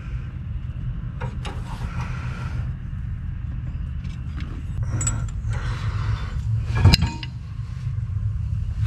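Scattered metal clicks and clinks from parts being worked by hand inside an open rear-axle differential, over a steady low hum. The loudest clink comes about seven seconds in.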